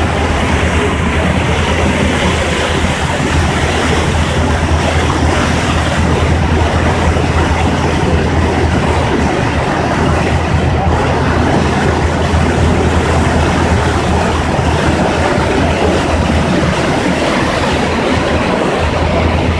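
Passenger ferry under way: a steady low engine drone under an even rush of water and wind.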